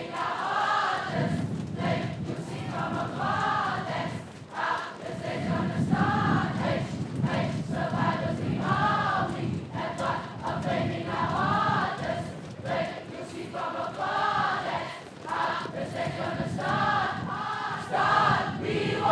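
A large crowd of students singing a chant in unison, one short rising-and-falling phrase repeated about every second and a half over a low crowd rumble.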